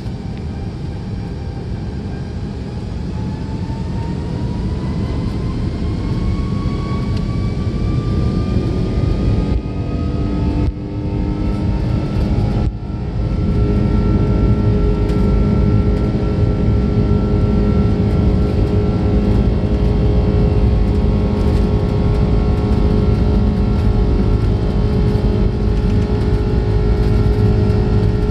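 Airliner jet engines heard from inside the cabin, spooling up for takeoff with a whine that rises in pitch and grows louder over the first dozen seconds. They then run steady at takeoff power over a strong low rumble as the plane rolls down the runway.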